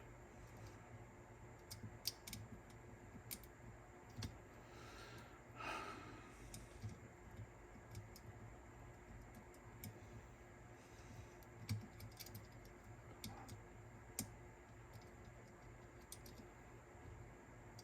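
Faint, scattered clicks and light taps of small tools and metal parts being fitted into a Sony TC-K777ESII cassette deck's tape mechanism, with a brief soft rustle about five seconds in.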